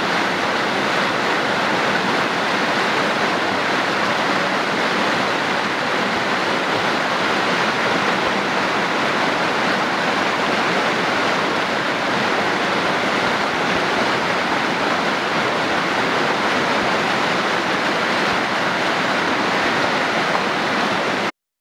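A fast creek rushing and splashing over rocks: a steady, loud rush of white water that cuts off suddenly near the end.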